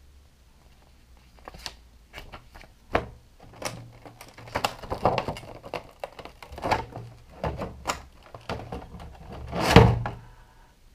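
Rigid clear plastic blister packaging crackling and clacking as it is handled and the lamp and its cable are taken out of it: a string of irregular clicks and rustles, the loudest crackle near the end.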